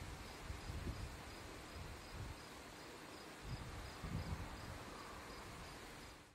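Faint insects chirping in a steady, even pulse, with low rumbles now and then.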